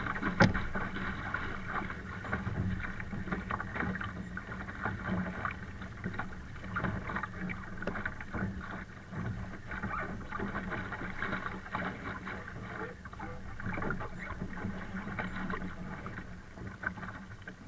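Water splashing and rushing along a Laser sailing dinghy's hull as it sails in strong wind, with an uneven, choppy churn. There is a sharp knock about half a second in.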